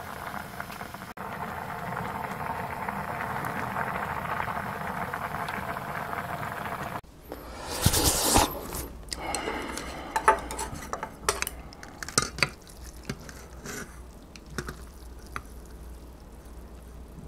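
A pot of ramen broth boiling hard on a gas stove, a steady bubbling hiss for about seven seconds. Then it cuts off, and after a loud noise about a second later come scattered clinks and clicks of chopsticks and a spoon against an aluminium foil bowl as noodles are lifted.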